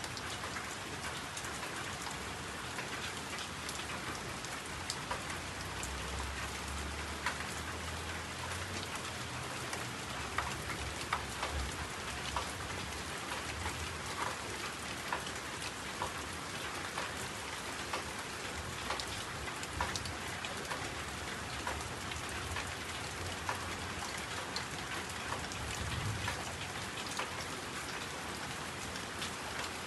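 Steady rain falling on a hard surface, with many individual drops ticking sharply.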